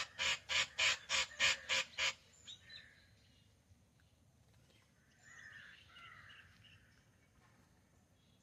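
A rapid series of about eight loud animal calls, roughly four a second, stopping about two seconds in, followed by a few fainter calls a little past the middle.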